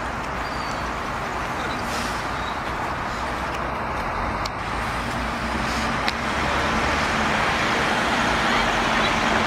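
Steady city street traffic noise, with a bus engine drawing nearer and getting louder from about halfway through.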